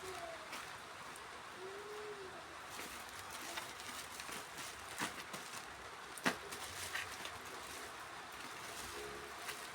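A dove cooing, a few short arched coos at the start and near the end, over a steady hiss. A few sharp clicks or taps come about halfway through.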